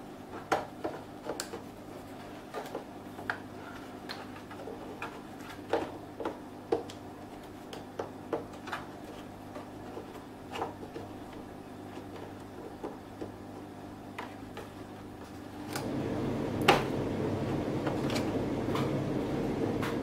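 Scattered light plastic clicks and taps as a push-fit 12-volt accessory power socket and its retaining ring are handled and fitted into a motorcycle's plastic fairing panel. Near the end a louder rustling scrape of the parts sets in, with one sharp click.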